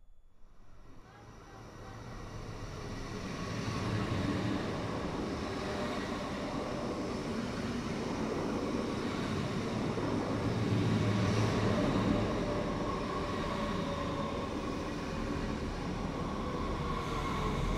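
Commuter train moving alongside a station platform: a steady rumble with a faint high whine, fading in over the first four seconds.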